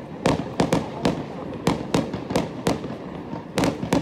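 Aerial fireworks bursting: an irregular string of sharp bangs, about a dozen in four seconds, several coming close together near the end.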